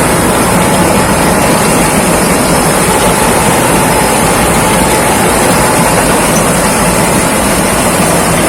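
Thai Seng rice combine harvester running steadily at work, a loud unbroken engine and machinery noise.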